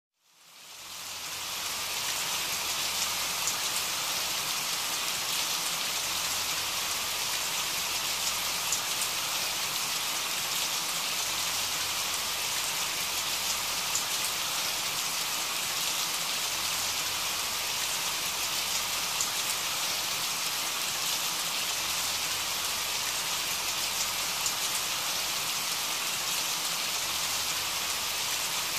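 Steady rain with faint scattered drop ticks, fading in over the first second or so and then holding level.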